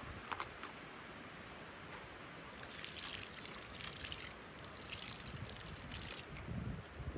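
Liquid poured from a carton into a wide steel paella pan of rice, splashing into the pan from about three seconds in until shortly before the end. Two short clicks sound just after the start.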